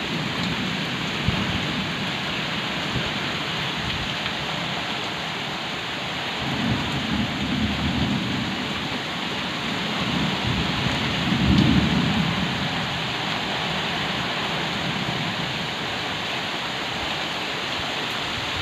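Heavy rain pouring steadily onto a plastic-sheet shed roof, with two low rumbles of thunder swelling up, about six seconds in and again about eleven seconds in.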